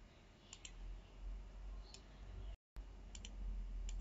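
Faint computer mouse clicks, several in quick pairs, as a call recording is being started. The audio cuts out completely for a moment a little past the middle.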